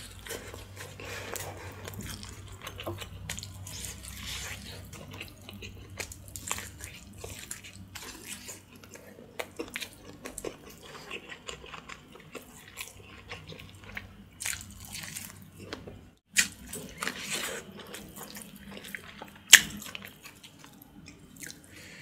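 Close-miked eating of boiled pork spine bones in spicy broth: wet chewing, smacking and sucking as meat is gnawed off the bone, with many small clicks and one sharp click near the end.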